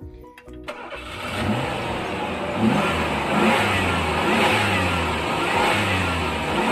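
An engine revving, starting about a second in, its pitch rising and falling several times.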